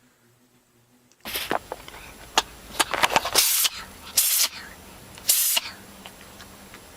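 A dog or cat sneezing repeatedly: a run of short, sharp, hissy sneezes starting about a second in, the last three about a second apart.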